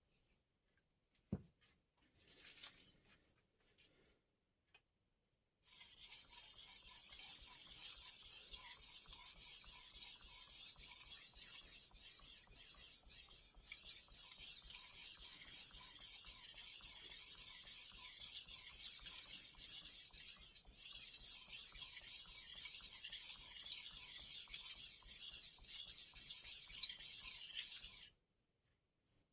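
A kiritsuke knife's steel edge is being stroked back and forth on a wet Taidea whetstone: a steady, hissing scrape that starts about five seconds in after a few faint clicks and cuts off abruptly near the end.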